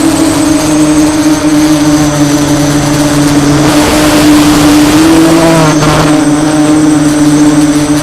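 DJI F550 hexacopter's motors and propellers in flight, a steady loud buzzing drone. Its pitch rises briefly about five seconds in, and a short rush of wind-like hiss comes just before that.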